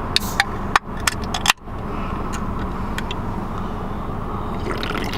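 Steady low hum inside a car, with a handful of sharp clicks and taps in the first second and a half as something small is handled.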